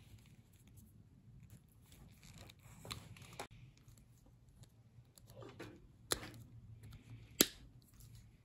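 Hand crimping pliers closing on wire terminals, with four sharp metallic clicks, the loudest about seven seconds in, over light rustling of wires being handled.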